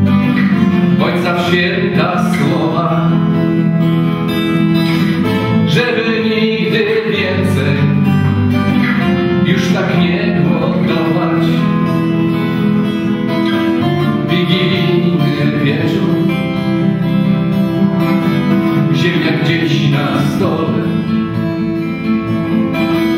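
Steel-string acoustic guitar playing chords in an instrumental passage between sung verses of a song.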